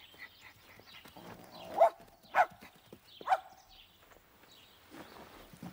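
An animal calling three times, in short sharp calls about half a second to a second apart.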